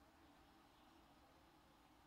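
Near silence: faint steady room tone.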